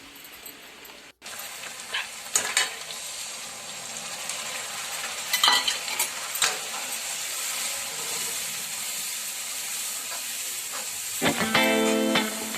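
Chicken curry sizzling as it fries in a pan, with a spoon stirring it and clinking against the pan a few times. Guitar music comes in near the end.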